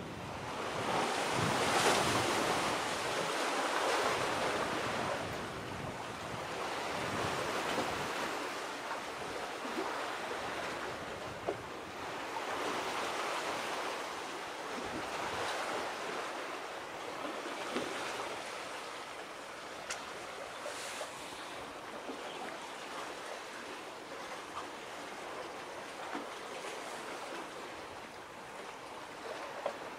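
Sea waves washing ashore, the wash swelling and fading every two to three seconds, loudest about two seconds in.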